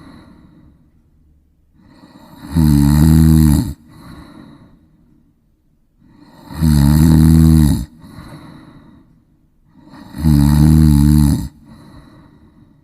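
A person snoring: three loud snores about four seconds apart, each lasting a little over a second, with softer breathing between them.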